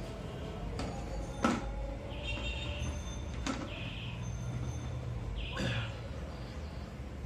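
Hands handling a TV's main circuit board and cable connectors against the metal chassis: a few sharp clicks, the loudest about a second and a half in, and several short scraping sounds, over a steady low hum.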